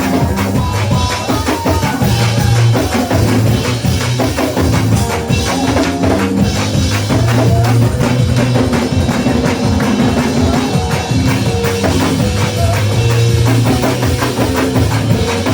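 Lively live gospel church music: a fast, driving beat of drums and tambourine over held low notes.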